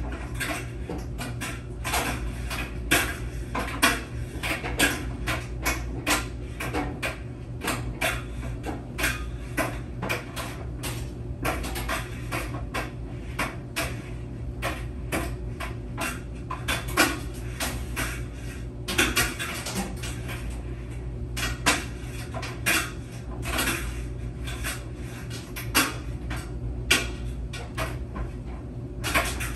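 A laundry machine running: a steady low hum under frequent irregular clicks and clatters, a few a second, of hard things knocking about inside the tumbling drum.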